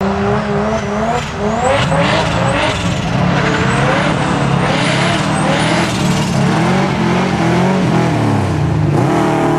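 Two drift cars sliding in tandem, their engines revving up and down over and over as the drivers work the throttle. Over the first several seconds there is a high, wavering tyre squeal.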